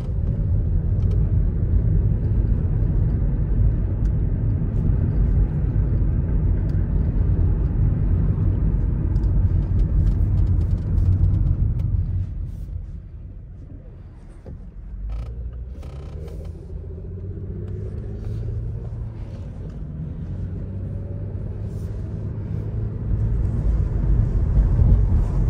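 Car being driven, heard from inside: a steady low road and engine rumble that eases off about halfway through as the car slows almost to a stop, then engine pitch rising as it pulls away and picks up speed again.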